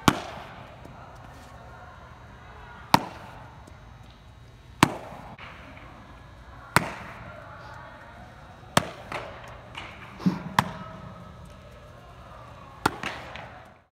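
Baseballs popping into a catcher's mitt, one sharp pop about every two seconds with a cluster of smaller knocks around the middle, each with a short echo in the enclosed space.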